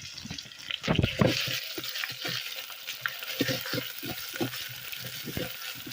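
Chopped onions and garlic paste sizzling in hot mustard oil in a pan, the sizzle swelling about a second in, with repeated scrapes of a spatula stirring them.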